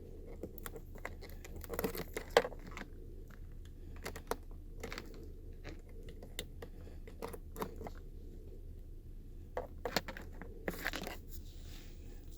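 Scattered clicks, taps and scraping from a USB charging cable being handled and its plugs pushed into and pulled from ports, the sharpest click about two seconds in and another cluster near the end.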